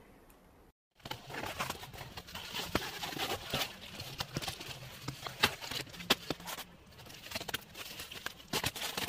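Brown paper crinkling and rustling as it is crumpled and handled, in a dense run of sharp crackles that starts after a short break about a second in.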